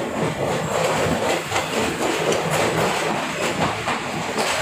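Passenger train running along the track, heard from a window of the moving carriage: a steady rumble of wheels on rail with irregular clattering knocks.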